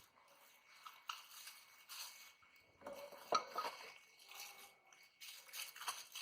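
Faint rustling and light clinks of the parts of a drill press stand kit being handled as it is unpacked. The sounds come as scattered short handling noises, a little louder about three seconds in and again near the end.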